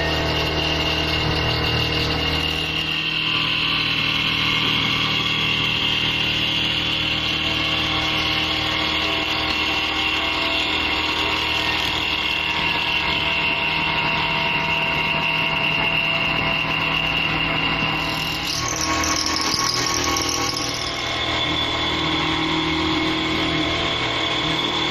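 Mini CNC milling machine running, its brushless spindle giving a steady whine as it mills. About 18 seconds in a higher squeal comes in for a few seconds, then the steady running resumes.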